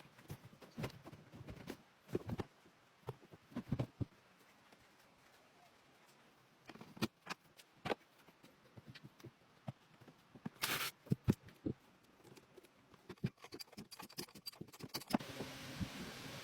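Irregular taps, knocks and scrapes of hand work, with a short hiss about ten and a half seconds in and a steadier hiss near the end.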